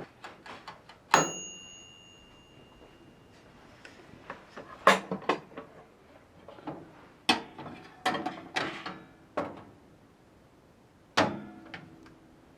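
Kitchen handling sounds: a sharp metallic click with a short ring about a second in, then scattered knocks and clicks of items being set down and moved.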